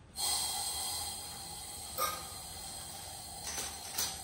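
Acetylene gas hissing steadily from a Turbo Torch air-acetylene tip, with a flint striker scraped about two seconds in and again near the end.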